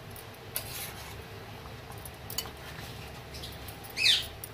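A spoon stirring thick curry gravy in a metal pan, with light clicks and scrapes against the pan and a short squeak about four seconds in.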